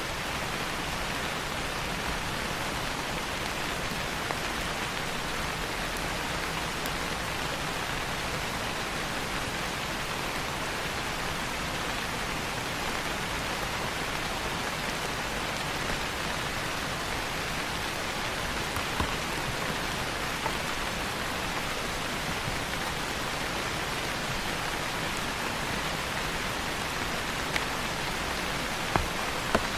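Steady rain falling, with a few sharp crackling pops from a wood fire in the second half.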